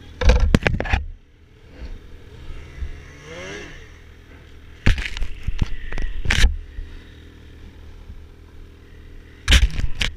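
Ski-Doo MXZ TNT 850's two-stroke twin idling steadily, with a short rising pitch about three seconds in. Three loud bouts of rubbing and knocking cut over it, at the start, in the middle and near the end, as hands handle the camera.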